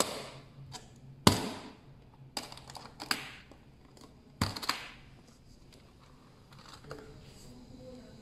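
Metal draw latches on an aluminium carrying case being flipped open, giving a series of sharp metallic clicks and snaps over the first five seconds, the loudest about a second in. After that there is only faint handling noise.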